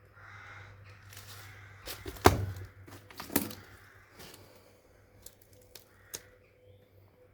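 A few sharp cracks and knocks, the loudest a little over two seconds in and another about a second later, then several light ticks.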